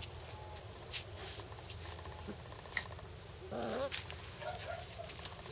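Five-week-old puppies playing with a plush toy on grass: soft rustling and a few clicks, then a short puppy vocalization about three and a half seconds in, and fainter brief ones near the end.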